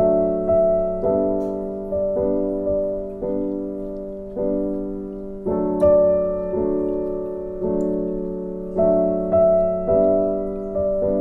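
Background solo piano music: slow notes and chords struck about once a second, each fading out before the next.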